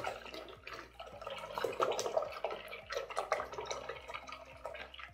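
Water tinted with black paint being stirred in a plastic bucket with a brush: irregular small splashes and sloshing, with light knocks against the bucket, easing off toward the end.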